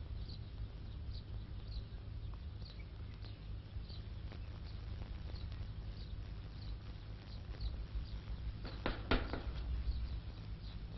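Steady low hum with faint, short high chirps repeating about every two-thirds of a second, and two sharp clicks about nine seconds in.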